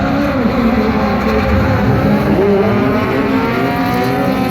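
Engines of a van and another car accelerating hard down a drag strip, their pitch climbing steadily near the end.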